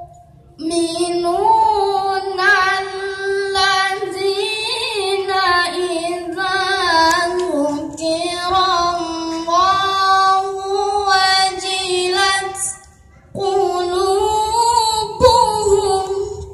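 A boy's voice chanting Quranic recitation (tilawah) in long, ornamented melodic phrases, pausing for breath just after the start and again about thirteen seconds in.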